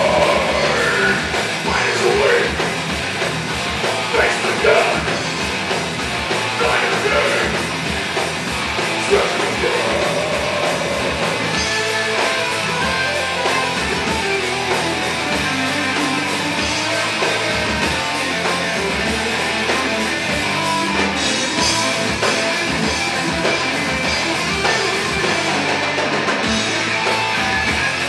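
Live rock band playing: electric guitars and a drum kit, loud and continuous, with vocals over the first several seconds.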